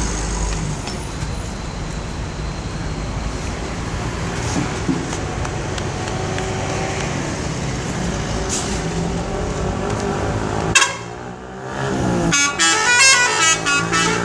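Steady road traffic and engine rumble. About eleven seconds in, a bus's telolet air horn sounds once, then plays its quick tune of changing tones near the end.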